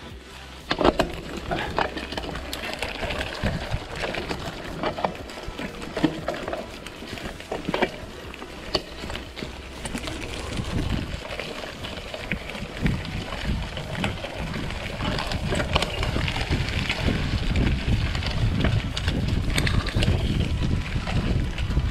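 Mountain bike riding over a rough dirt trail, with irregular knocks and rattles from the bike jolting over the ground. From about halfway, wind rumbling on the microphone grows louder as the bike picks up speed.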